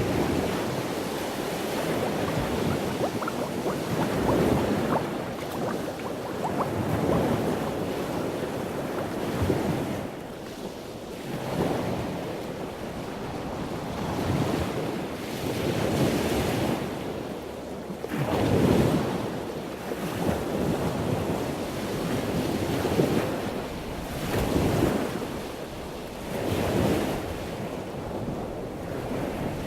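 Dubbed-on ambient soundtrack of a rushing noise that swells and ebbs every two to three seconds, with the loudest surge a little past halfway.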